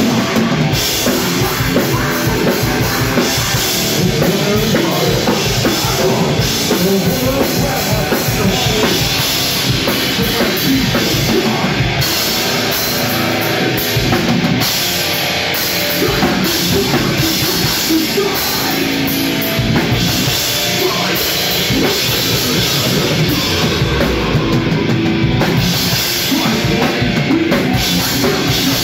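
Live heavy metal band playing loud and without a break: electric guitar over a drum kit beating out dense, fast strikes.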